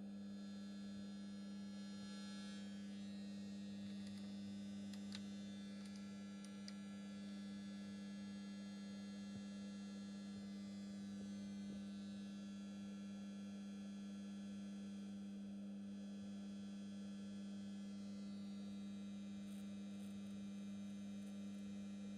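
A steady electrical hum, strongest around 200 Hz, running through a rack analog delay/flanger effects unit. Its high overtones sweep up and down in a flanging whoosh a few times as the delay-time and modulation knobs are turned, with a few faint knob clicks.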